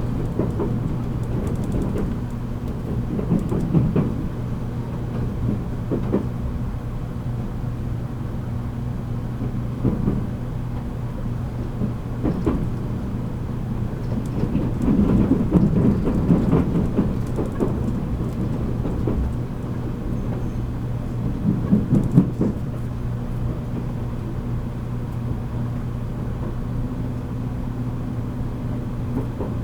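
Interior running sound of a JR Kyushu 783 series limited express train, heard in one of its motor cars: a steady low hum over the rumble of wheels on rail. The rumble swells louder about halfway through and again a few seconds later.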